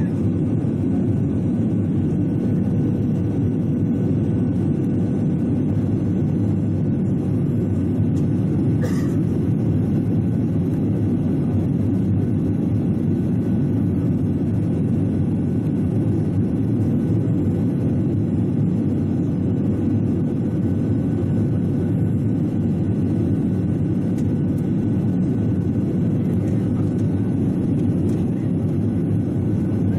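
Steady engine and airflow noise inside the cabin of a Boeing 737-800 with CFM56-7B engines, descending on approach: an even, low rumble with a faint steady hum over it.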